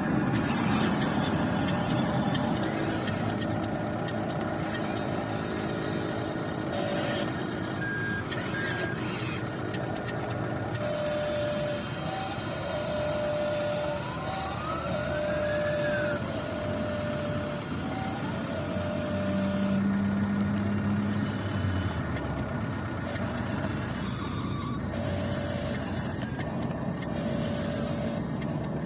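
Radio-controlled model truck's sound-module effects: a steady engine-and-motor noise, with a truck reversing alarm beeping in repeated short tones from about a third of the way in.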